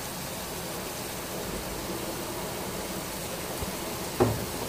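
Chicken frying in masala and oil in an aluminium pot, a steady sizzle, with a brief thump near the end.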